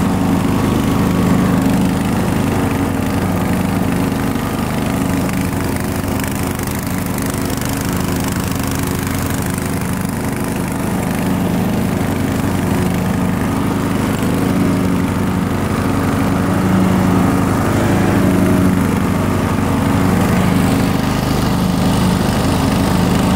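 Murray Select riding mower's 17.5 hp engine running steadily while mowing, a constant even drone with no change in speed.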